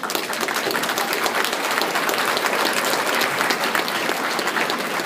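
Crowd applauding, many hands clapping at once in a steady dense patter.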